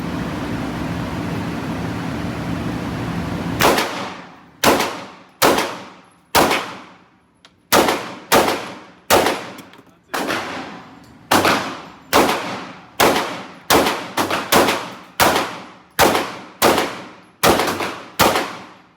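A steady rushing noise with a low hum for about three and a half seconds, then a run of about twenty gunshots fired one after another at a shooting range, roughly one every three quarters of a second, each with a short ringing tail, coming a little quicker for a few shots near the middle.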